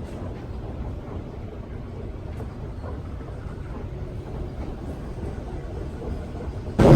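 Steady low rumble of a car running, with a sudden loud rush of noise starting in the last fraction of a second.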